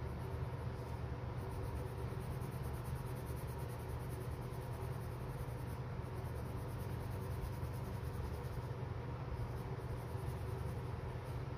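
Deli Arte Nuevo watercolour pencil shading back and forth on paper, a steady scratchy rubbing over a low hum.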